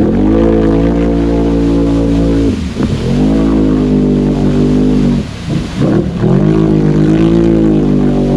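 Can-Am Renegade XMR 1000 ATV's V-twin engine, through slip-on mufflers, revved hard in three long bursts with short drops between. Its spinning 32-inch mud tires churn and throw mud, the sign of a machine stuck in a mud hole too deep for those tires.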